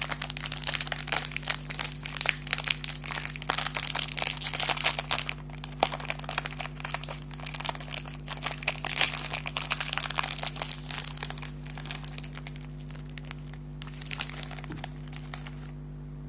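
Plastic snack wrapper crinkling and crackling loudly as it is handled and opened close to the microphone, in dense irregular bursts that stop shortly before the end.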